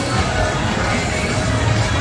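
Loud music with a heavy bass line, playing from the bars' sound systems.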